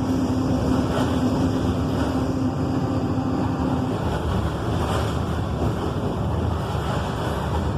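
Volkswagen 17.230 truck's diesel engine running steadily, with a steady humming tone over it that stops about four seconds in.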